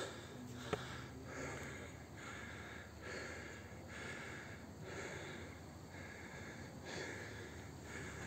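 A man panting heavily while climbing steep stone stairs, about one breath a second. A single short tap sounds under a second in.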